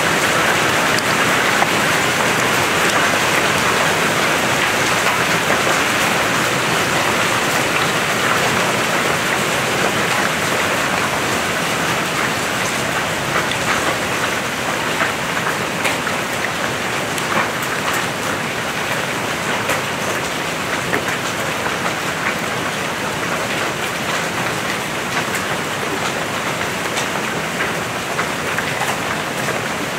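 Heavy rain mixed with hail: a dense, steady hiss of rain with scattered sharp ticks of hailstones striking, easing gradually.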